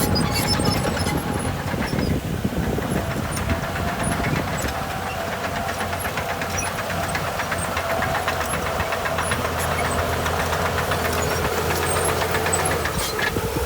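Diesel engine of heavy earthmoving machinery running steadily under load, with a dense metallic clatter over it.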